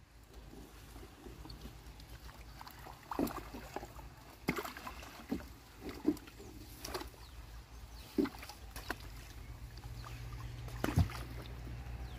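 A wooden paddle dipping and pushing in shallow water beside a round coracle, giving short irregular splashes and knocks about once a second as the boat is worked along the bank.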